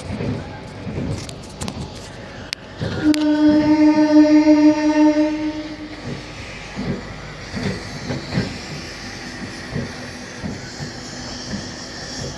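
Passenger train running with repeated wheel clacks over the rail joints, and a train horn sounding one long steady blast about three seconds in that lasts nearly three seconds.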